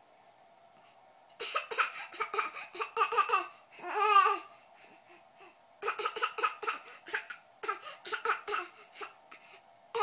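Baby laughing in two runs of quick, choppy giggles, with a drawn-out wavering squeal between them about four seconds in.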